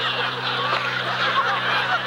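A large audience laughing at a joke, many voices overlapping, over a steady low electrical hum.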